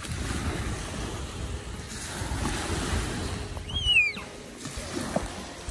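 Small waves breaking and washing up on a sandy beach, with wind rumbling on the microphone. About four seconds in, a short high squeal that falls in pitch stands out as the loudest sound.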